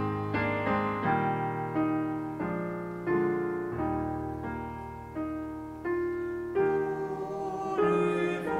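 Piano playing slow, sustained chords, a new chord struck about every second over a held bass, each note fading after it is struck.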